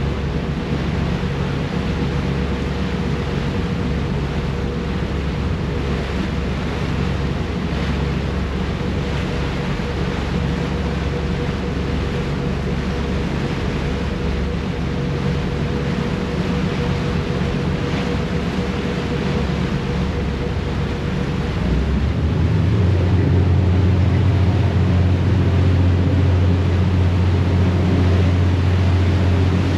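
Harbour ferry's engines droning steadily under the rush of its wake and wind on the microphone. About two-thirds of the way through, the engine drone grows louder and heavier.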